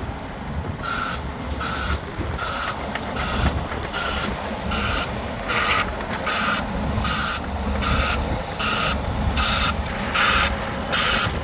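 Backup alarm of a construction machine beeping steadily, about three beeps every two seconds, starting about a second in, over the low rumble of its diesel engine: the machine is reversing.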